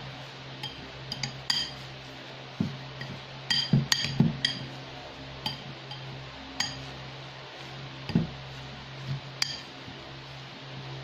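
Metal fork clinking and scraping against a ceramic bowl while stirring a crumbly mix of flaked tuna and crushed crackers. About a dozen irregular clinks, each with a short ring, bunched most tightly a few seconds in.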